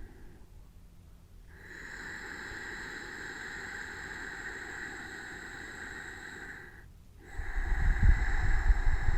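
Ujjayi breathing: a slow, steady hiss of air drawn through a slightly constricted throat with the mouth closed. One long breath lasts about five seconds; after a brief pause the next breath starts near the end, louder, with air buffeting the close microphone.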